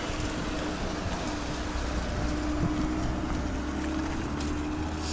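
Wind rushing over the microphone and tyre noise on asphalt while a bicycle is ridden, with a low rumble and a steady hum.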